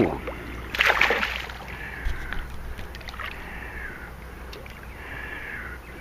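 A hooked eel splashing at the water's surface beside a small boat, with one sharp splash about a second in. A few faint, high, slightly falling whines follow.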